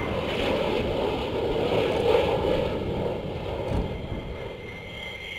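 F-16 fighter's single jet engine rushing as the jet comes in to land, swelling to a peak about two seconds in and then fading as it passes.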